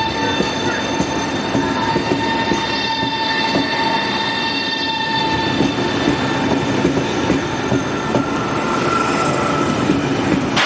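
Train moving through the station: steady rumble of wheels on track, with a high-pitched whine of several steady tones that fades out about halfway through.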